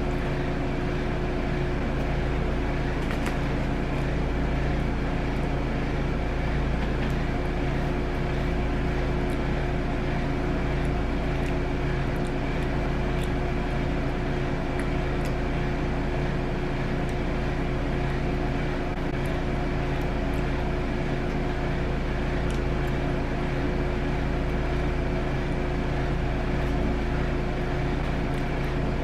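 Steady mechanical hum with several constant tones, unchanging throughout, with a few faint ticks scattered through it.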